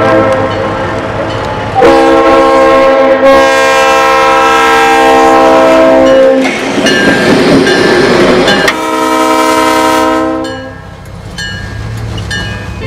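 Diesel locomotive's multi-chime horn sounding long blasts for a grade crossing, with a rush of engine and wheel noise as the locomotive passes close by about six seconds in. Another long horn blast follows, then the sound fades into wheels clicking over the crossing.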